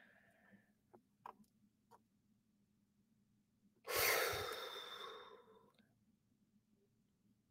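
A woman's long, heavy sigh, starting abruptly about four seconds in and fading away over about two seconds, after a few faint clicks.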